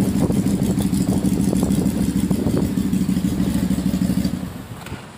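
Stock Keeway V-twin motorcycle engine running at idle, a steady low beat with light clicks, which dies away a little after four seconds in.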